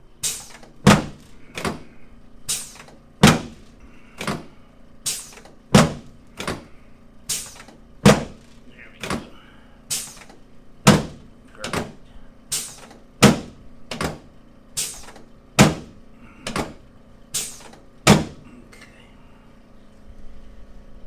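About twenty sharp, evenly spaced clicks of chiropractic adjustments delivered over the right sacroiliac joint and the centre of the sacrum, a little over one a second, stopping near the end.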